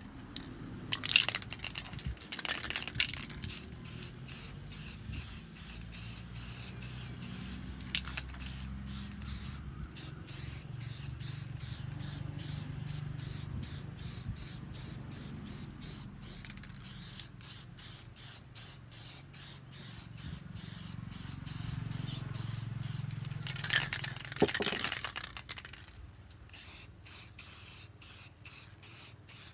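Aerosol spray-paint can hissing in short, rapid bursts, about two or three a second, as paint is sprayed onto a board. A few louder clicks and rustles of handling come near the start and again near the end.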